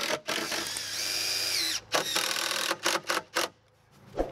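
DeWalt cordless drill/driver driving screws into a deck skirt board. The motor runs in several spurts: a longer steady whine that spins up and winds down about a second in, then a few short trigger bursts before it stops.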